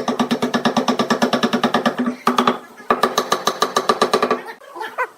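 A power tool running with a fast, even hammering pulse of about fourteen strokes a second. It works in bursts: a long run, a short burst, then another run that stops shortly before the end.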